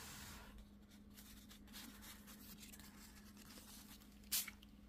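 Quiet paper handling on a tabletop, with one short, crisp rustle or tap of paper about four and a half seconds in.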